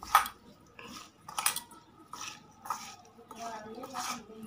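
A bare hand mixing raw peeled prawns with turmeric and salt in a stainless steel bowl: wet squishes and knocks of the hand and prawns against the steel, about two a second, each with a brief ring from the bowl.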